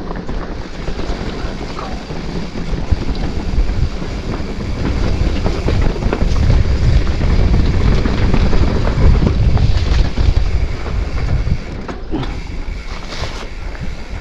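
Wind buffeting the microphone over the rattle and tyre noise of a mountain bike rolling over a rocky trail. It grows louder from about five seconds in and eases after about ten.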